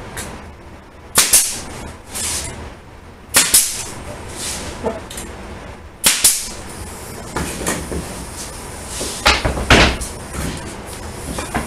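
Pneumatic brad nailer firing brads into wooden trim molding: three separate sharp shots, about one, three and a half and six seconds in. Near the end comes a cluster of wooden knocks as the trim pieces are handled.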